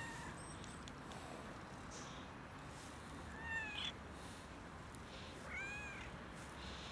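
Tabby-and-white cat meowing: two short calls that rise and fall in pitch, about three and a half seconds in and again near six seconds.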